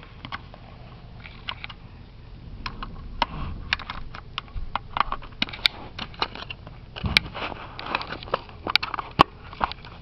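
Irregular small clicks, taps and rattles of hands handling a plastic smoke alarm and fitting a battery into its compartment, with a few dull handling thumps.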